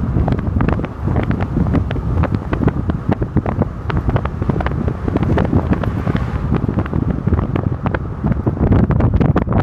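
Wind buffeting the microphone while travelling along a road: a loud, rough low rumble with frequent crackles.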